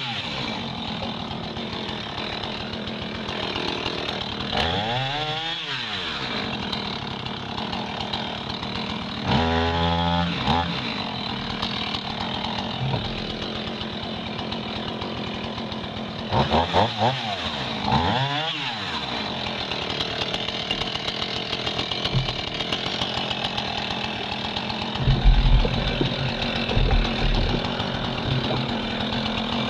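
Husqvarna Rancher two-stroke chainsaw cutting through jammed river logs, running at high speed throughout. Its engine speed dips and climbs back about five times as it bogs in the wood and frees again. A few low thuds come about two-thirds of the way through.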